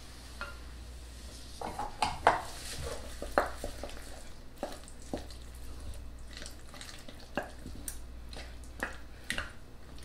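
Wooden spoon stirring a thick mixture of marshmallows and melted peanut butter chips in a large glass measuring bowl, with irregular scrapes and knocks against the glass, the loudest a little after two seconds in.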